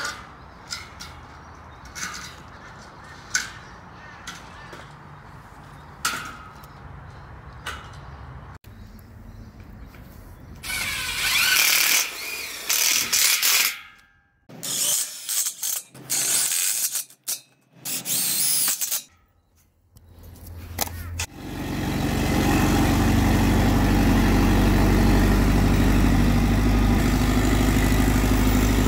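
Galvanised steel frame sections clanking and knocking as they are handled, then a cordless drill driving screws into the steel frame joint in several loud short bursts. About twenty seconds in, the engine of an old yard crane starts up and runs steadily.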